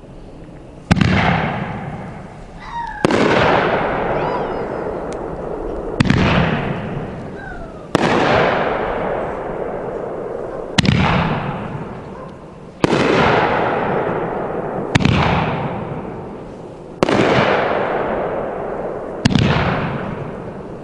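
A 3-inch, nine-shot firework cake firing, with nine sharp shell bangs about two seconds apart. Each bang is followed by a long fading rumble and crackle.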